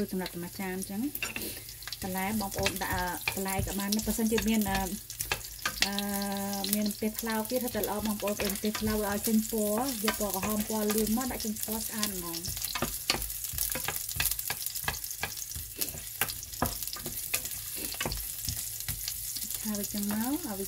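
Chopped onion sizzling in hot oil in a frying pan, stirred with a wooden spatula that scrapes and taps against the pan. A voice is heard over the first half.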